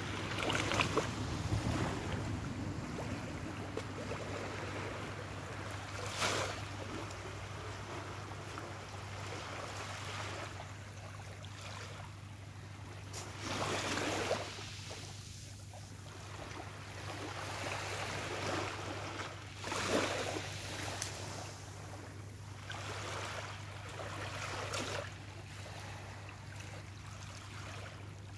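Small waves of a calm sea lapping and washing up on a sandy beach, each wash swelling and fading every few seconds, over a steady low hum.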